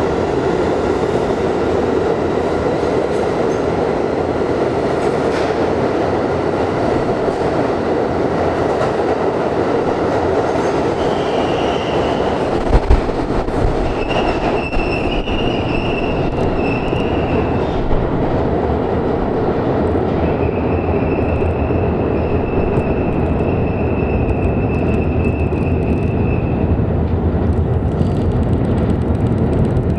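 Budd R32 subway train departing and running into the tunnel with a steady rumble. From about a third of the way in its wheels squeal in high, drawn-out tones, the longest lasting several seconds near the end. A brief loud thump sounds about halfway through.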